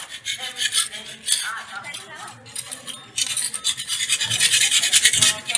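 Hand-held metal scraper scraping old paint off a painted wall in rapid repeated strokes, densest in the second half. Voices are heard faintly behind it.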